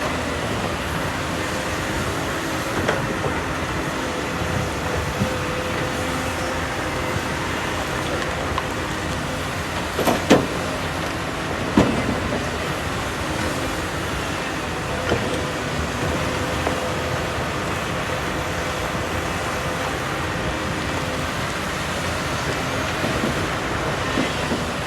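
Heavy earthmoving machinery running steadily, with a couple of sharp knocks about ten and twelve seconds in.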